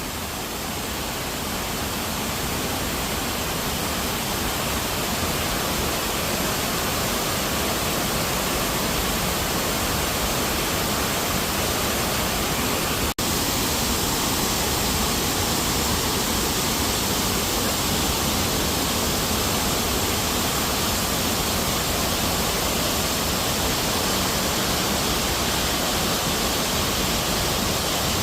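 Waterfall: a steady rush of falling water, growing a little louder over the first few seconds, with a momentary break in the sound about 13 seconds in.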